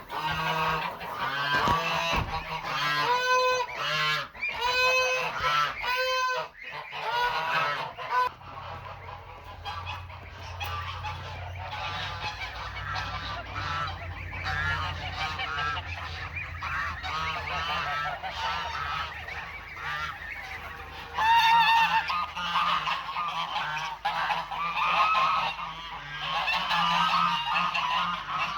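Domestic geese honking, many calls overlapping, with loud runs of quick repeated honks a few seconds in and again about two-thirds of the way through.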